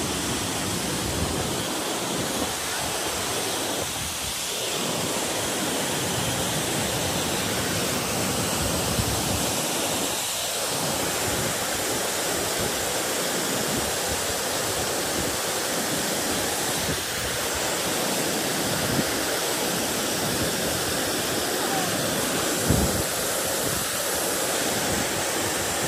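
Steady rushing noise, even and unbroken, with a brief thump near the end.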